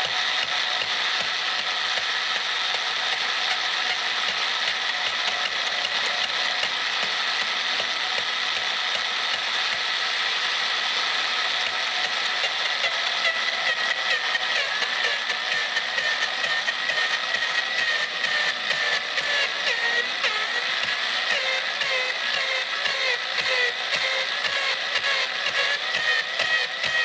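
Electric drill turning a homemade boring bar whose cutter is taking a heavy cut from the inside wall of an aluminium Minarelli 1E40QMB-type crankcase, opening it up to clear a stroker crank. A steady mechanical running sound with rapid chattering clicks, growing more uneven from about halfway.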